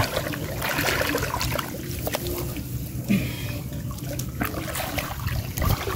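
Water splashing and trickling, with irregular small clicks and knocks.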